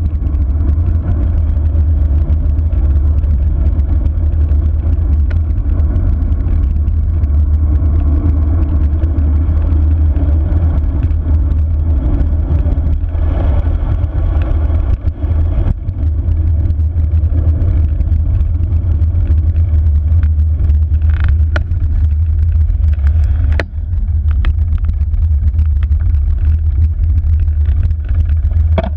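Wind rushing over a bike-mounted camera's microphone during a fast road-bike descent: a loud, steady low rumble, with a few sharp clicks in the second half.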